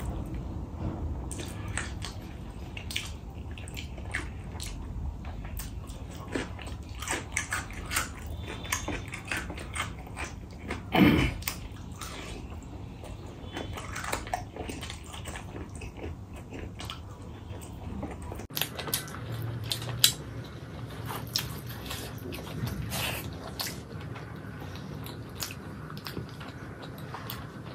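Close-up eating sounds: chewing and smacking of rice and curry eaten by hand, with many small wet clicks and fingers working the food on a stainless steel plate. One louder wet mouth sound comes about eleven seconds in.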